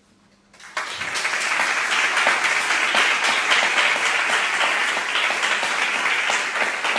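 Audience applauding: a moment of hush, then many hands clapping together, starting about half a second in and holding steady.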